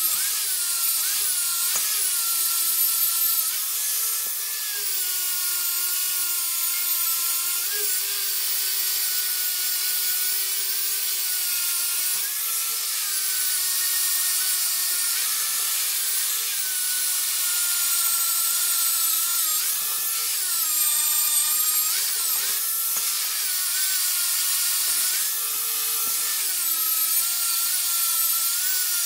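Angle grinder running against the steel of a rusty meat axe blade, grinding off rust. A steady motor whine over a harsh grinding hiss, the pitch sagging each time the disc is pressed harder into the metal and then recovering.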